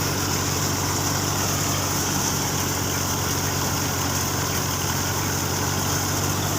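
Tractor engine running steadily while it drives a wheat thresher through a shaft, a constant low hum with a steady hiss above it from the threshing machine.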